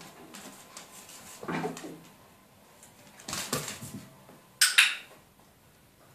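A dog's paws and claws moving on a wooden floor as it settles into a down, with a short, sharp hissing noise about four and a half seconds in.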